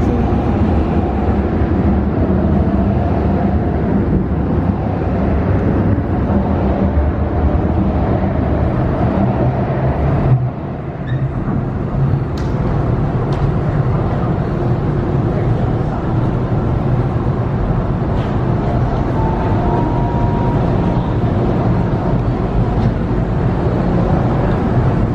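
CAF-built MTR Tung Chung Line electric train running after pulling out of the station: a steady, loud rumble of motors and wheels on the rails, which dips briefly about ten seconds in.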